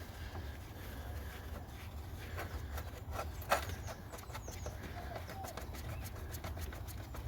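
A few faint ticks and taps, with one sharper click about three and a half seconds in, as a part is worked into place around a van's battery in the engine bay, over a steady low rumble.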